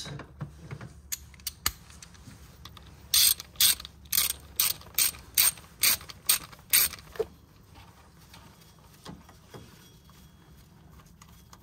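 Hand ratchet clicking in a quick regular run, about two clicks a second for some four seconds, as a 10 mm bolt is turned down, with a few lighter ticks before it.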